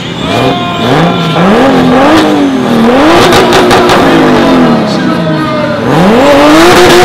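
A drag car's engine revving hard in repeated rises and falls, then climbing and holding at high revs near the end, as its tyres spin in a smoky burnout at the start line.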